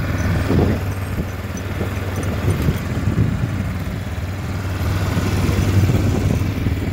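200cc four-stroke ATV engine idling with a steady low hum.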